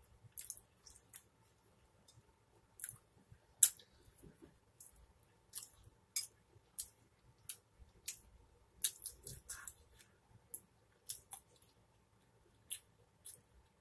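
Close-miked chewing of pizza with the mouth closed: irregular wet lip smacks and mouth clicks, a dozen or more, the loudest a little over three seconds in.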